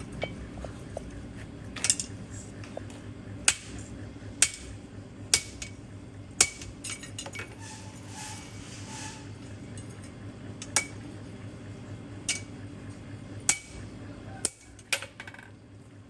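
Sharp metal-on-metal clanks, about ten of them at irregular intervals, each ringing briefly, over a steady low machine hum that stops near the end.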